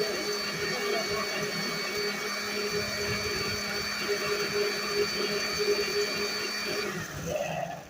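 Electric blender running steadily with a constant whine. It is switched off near the end and its motor winds down.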